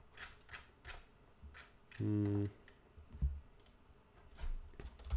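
Scattered clicks from a computer mouse and keyboard at a desk. A short hummed 'mm' comes about two seconds in.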